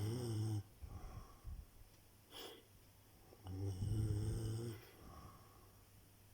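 Snoring in slow, regular cycles: one long buzzing snore ends about half a second in, and the next comes about three and a half seconds in. Softer short breaths fall between them.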